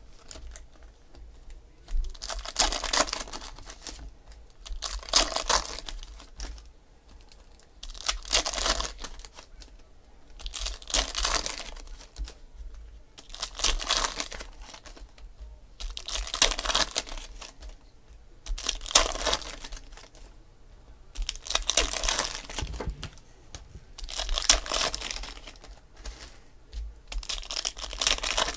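Foil packs of 2016 Panini Select football cards and the glossy cards inside being handled: a crinkling, rustling burst about every two to three seconds, starting about two seconds in.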